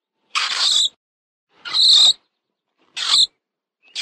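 Mole squeaking: a series of short, shrill squeaks, one about every second and a quarter.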